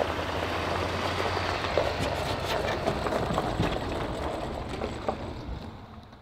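Pickup truck engine running as it tows a bass boat on its trailer away, with scattered clicks and rattles from the rig over the tyre noise. The sound fades out near the end.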